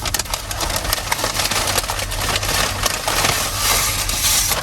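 Crinkling and rustling of a paper fast-food wrapper as a biscuit sandwich is unwrapped: a dense run of small crackles throughout. A low steady hum runs underneath.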